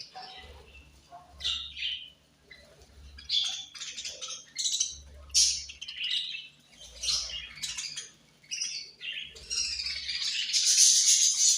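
Budgerigars chirping and chattering in short, irregular high calls. Near the end a dense, steady rattling hiss comes in and becomes the loudest sound.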